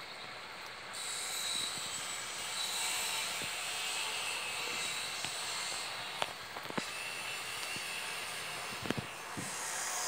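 A steady rushing noise from somewhere off behind, a racket that swells about a second in, with faint thin high tones through it. Several short sharp clicks come in the second half.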